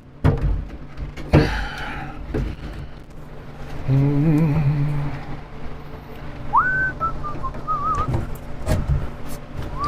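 A man hums briefly, then whistles a few wavering notes of a tune, among a few sharp knocks of workshop handling.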